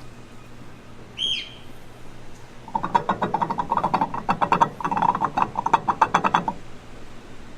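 Rapid rattling clicks from a tool working a bolt, in several bursts over about four seconds, during removal of the fan-pulley bracket bolts. A bird gives one short falling chirp about a second in.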